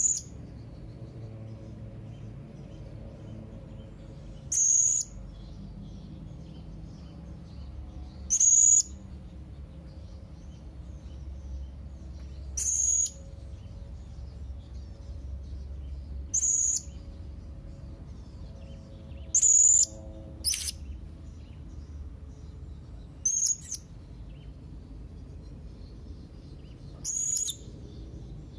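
Young blue-crowned hanging parrot (serindit) calling: short, high-pitched calls repeated about every three to four seconds.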